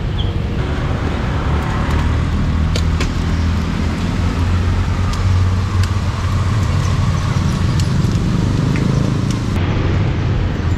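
Street traffic, dominated by a steady low engine rumble from a motor vehicle close by, with a few light clicks.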